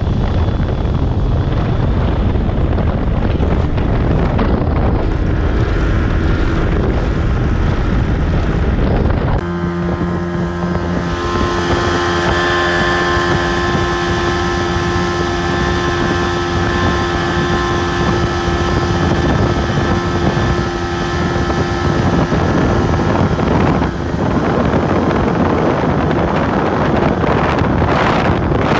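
Small outboard-powered mini-boat running at speed, its engine drone mixed with heavy wind buffeting on the microphone. About nine seconds in the sound cuts abruptly to a steadier boat engine drone with a clear, even hum.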